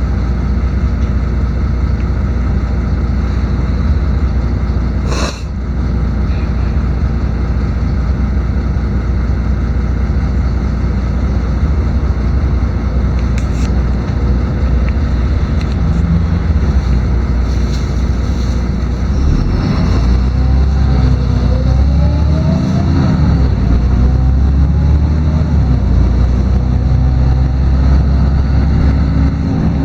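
LiAZ-6213.22 articulated city bus heard from inside the cabin: steady engine and road noise, with a sharp knock about five seconds in. From about nineteen seconds in, the engine pitch rises and falls several times as the bus accelerates through its gears.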